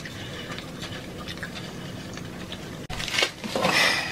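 Close-miked mukbang eating sounds: chewing and small wet mouth noises, growing louder and scratchier in the last second.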